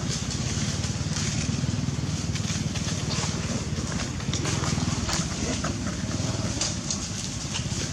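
A steady low rumble throughout, with dry leaves crackling under macaques' feet and a few faint, short squeaks from a baby macaque in the second half.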